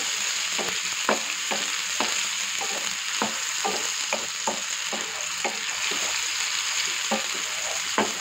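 Chopped tomatoes and onions sizzling in hot oil in a frying pan, stirred with a wooden spatula that taps and scrapes against the pan in irregular knocks, two or three a second, over the steady sizzle.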